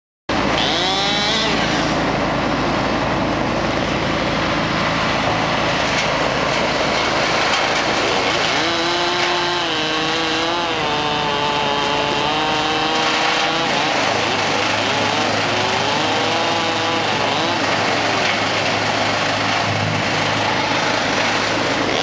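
Engines of tree-removal equipment running without a break: a steady drone, with engine notes that slide up and down in pitch as the load changes.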